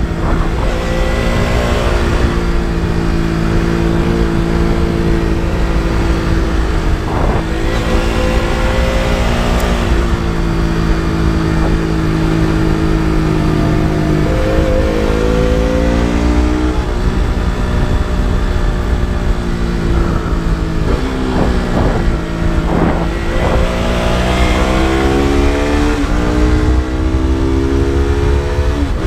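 KTM RC 200's single-cylinder four-stroke engine and exhaust under riding load: a steady drone at cruising revs for the first half, then revving up through the gears in repeated rising sweeps with brief dips between them, over a constant rush of wind and road noise.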